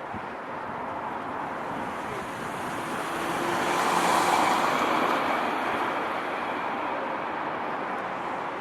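A vehicle passing the level crossing, its noise swelling to a peak about four seconds in and then slowly fading.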